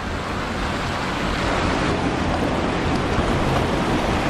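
Steady rush of a trout stream's flowing water, with no distinct splashes or strikes.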